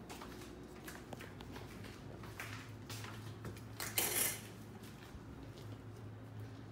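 A closet door pulled open with a short clattering rattle about four seconds in, after a few small clicks and knocks of handling.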